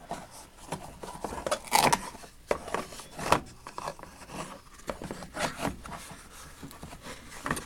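Micrometers being picked up, handled and set down in a tool box drawer: scattered light clicks, knocks and scrapes, the sharpest about two and three seconds in.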